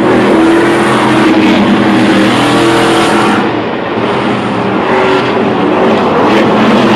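A pack of Stadium Super Trucks racing past at speed, their V8 engines revving hard, the engine pitch shifting up and down as the trucks accelerate and go by. The loudness dips briefly about halfway through.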